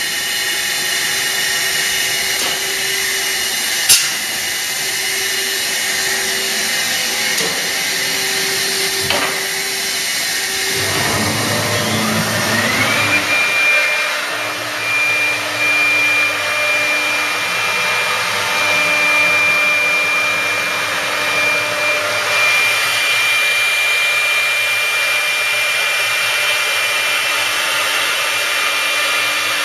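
1995 Busellato Supereasy CNC router: a steady rushing hiss of running machinery, with a sharp click about four seconds in. About eleven seconds in the spindle motor spins up, a rising whine that levels off into a steady high whine, running up to speed before cutting.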